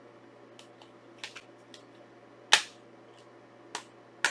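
Several sharp plastic-and-metal clicks and snaps from a Blu-ray steelbook case and disc being handled, the loudest about halfway through.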